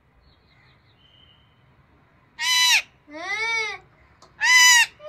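Rose-ringed parakeet screeching: after a quiet first couple of seconds, a loud call, a lower drawn-out call, then another loud call near the end, each rising and falling in pitch. The owner takes the calls for anger.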